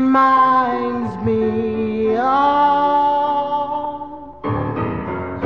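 Slow oldies ballad music: long held, gliding notes, with a fuller accompaniment coming in about four and a half seconds in.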